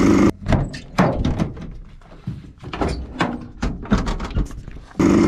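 Several sharp knocks and thunks inside a small van's metal cargo area, with quieter rattling between them. The Yamaha Blaster's two-stroke engine running cuts off just after the start and comes back near the end.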